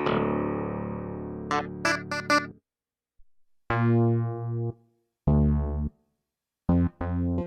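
Kurzweil K2vx synthesizer preset being played. A held chord fades over about two and a half seconds with a few quick notes on top. After a pause come two separate single notes, then a run of short, detached notes near the end.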